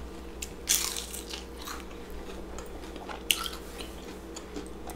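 Close-up crunching bites into crisp, beer-battered deep-fried king crab, then chewing, with scattered crackles of the batter. The loudest crunch comes just under a second in, another sharp crackle just past three seconds.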